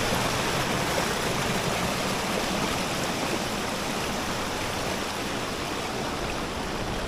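River water rushing steadily down a concrete fish ladder, churning white over its steps. The rushing grows a little softer in the second half.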